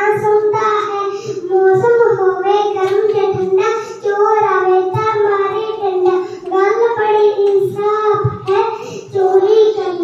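A young boy sings a nursery poem in a sing-song tune into a handheld microphone, phrase after phrase with short breaths between.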